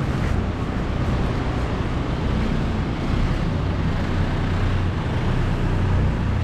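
Steady low rumble of city street ambience, with no distinct events.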